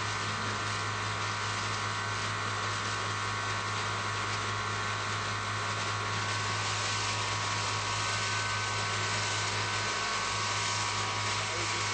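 High-pressure steam venting from a 400,000 BTU boiler's outlet pipe: a steady hiss, with a low hum underneath.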